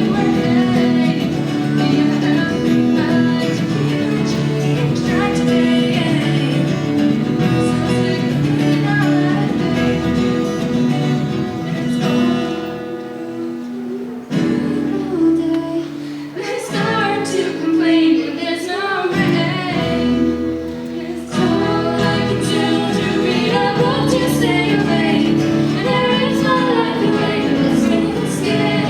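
A song sung by a female voice to acoustic guitar, with the accompaniment thinning out and quietening for several seconds in the middle before the full sound returns.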